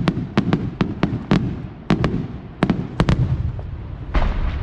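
Fireworks display: a rapid, irregular volley of sharp firework bangs, about a dozen in the first three seconds. About four seconds in there is a deeper, broader blast with a rushing hiss.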